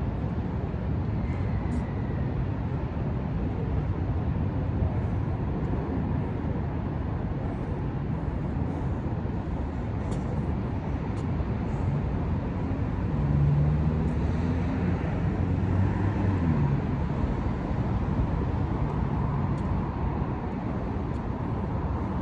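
Steady outdoor traffic rumble, with a vehicle engine growing louder and passing a little past the middle.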